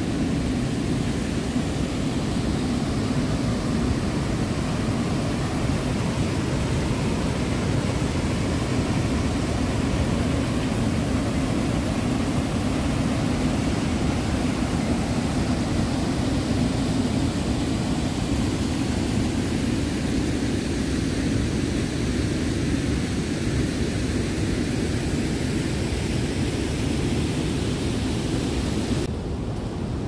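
Steady roar of rushing water from the wide, low cascade of the Manavgat River waterfall, heaviest in the low range. About a second before the end it switches abruptly to a quieter, duller rush.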